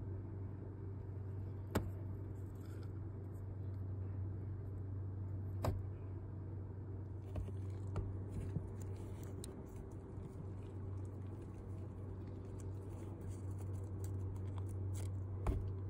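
Aluminium tape and cables being handled, with a few sharp clicks and, from about halfway through, light crinkling as the foil tape is pressed around a cable, over a steady low hum.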